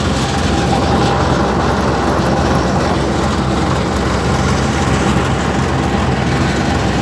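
Tractor's diesel engine running steadily.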